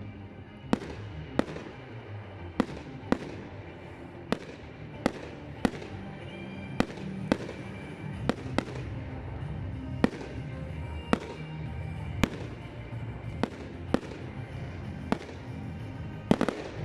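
Aerial fireworks going off in a steady series of sharp bangs, about one a second, each with a short echo tail.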